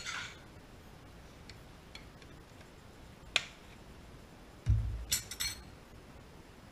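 A short rustle, a sharp click about halfway, then a low thump followed by a quick run of light clinks, as of something knocked about on a kitchen counter.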